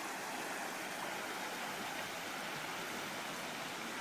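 Steady rushing of flowing river water, an even hiss with no breaks, from the Loue river.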